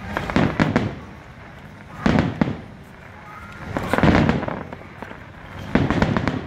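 Aerial fireworks shells bursting: four clusters of sharp bangs, one near the start and then about every two seconds.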